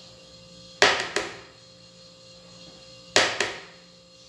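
A spatula knocked sharply against a small dish to shake margarine off into a mixing bowl. It comes in two quick groups of two or three knocks each, about a second in and again about three seconds in.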